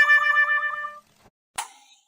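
Cartoon-style comic sound effect: a held, pitched boing tone with a fast wobble that fades out about a second in, followed by a short click.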